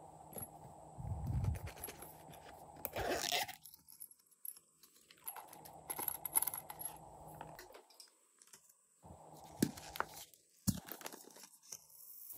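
Small plastic containers handled and shaken as confetti and foam beads are sprinkled onto slime: crunchy rattles and scrapes with scattered sharp clicks, two of them louder near the end.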